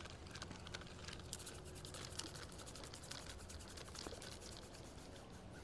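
Spinning reel being cranked to reel in the fishing line, a faint, fast run of ticks that is busiest in the first half.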